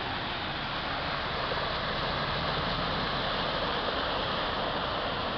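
Steady rushing and splashing of floodwater flowing across a street, with a pickup truck's tyres ploughing through the water.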